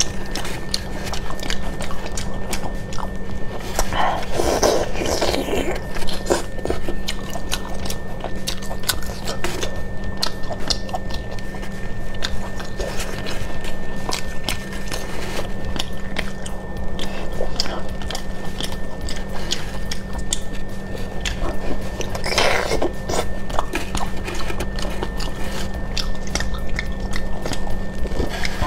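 Close-miked wet chewing and biting of braised octopus: a dense run of quick, sticky mouth clicks, with a few longer, louder stretches about four seconds in and again a little over twenty seconds in, over a steady low hum.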